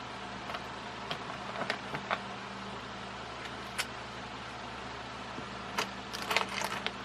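Scattered small clicks and clinks of hardware being handled while ceiling-fan blades are fitted: a few near the start, one in the middle and a quick cluster near the end, over a steady low background hum.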